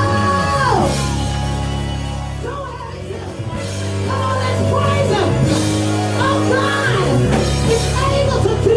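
Live gospel praise-and-worship music: held chords with singing voices over them, easing off briefly about three seconds in before building again.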